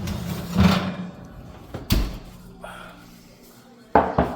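Kitchen clunks as the cast iron skillet of cornbread comes out of the oven: one sharp knock about two seconds in and two quick thuds near the end.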